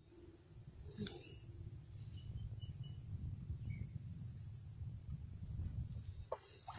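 Faint, short, high bird chirps, about five of them spread out, over a low steady rumble.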